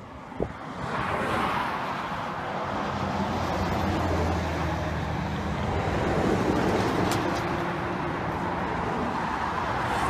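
BCI Classmaster coach driving along a highway: tyre and road noise with a steady low engine hum. A sharp click comes about half a second in and another near seven seconds.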